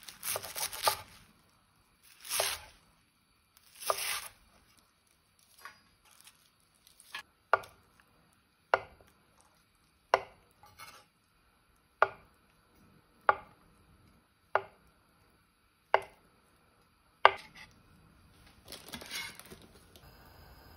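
Knife chopping on a cutting board in single, evenly paced cuts, about eight of them a little over a second apart, with a few rustling swishes at the start and again near the end.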